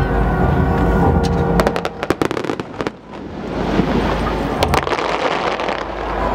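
Fireworks going off: a quick run of sharp bangs and crackles about two seconds in, then a dense crackling hiss of bursting sparks that builds up over the following seconds.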